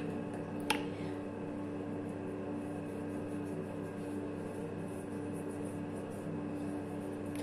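Steady background hum with a faint steady tone, and one short click under a second in.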